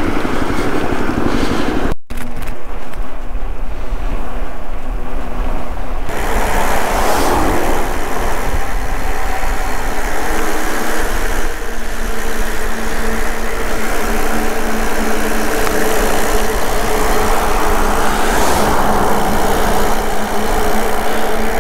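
Steady wind rush and rumble over the camera microphone while riding a bicycle on a paved road, with a brief break about two seconds in.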